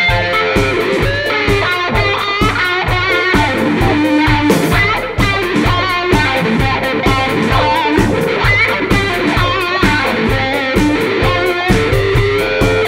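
Funk band playing live, with a Stratocaster-style electric guitar soloing over bass and drums that keep a steady beat.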